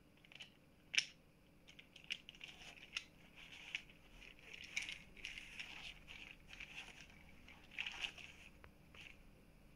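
Faint rustling and small clicks of a 3D-printed articulated plastic hand being handled and moved on a fabric chair headrest, with a sharper click about a second in and busier handling around the middle and near the end.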